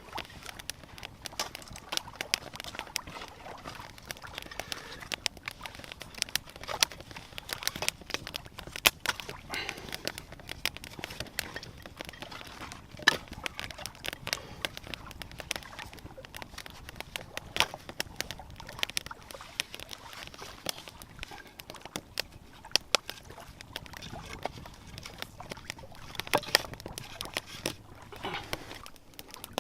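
Small campfire kindled from feather sticks, crackling with irregular sharp snaps over a low hiss.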